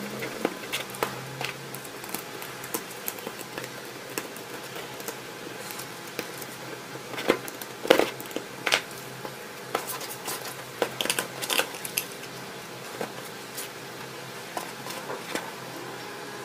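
Hands handling and fitting the plastic and metal chassis plates of an RC car kit together: irregular clicks, taps and light knocks of parts against each other and the table. The loudest cluster comes about eight seconds in. All of it sits over a faint steady hum.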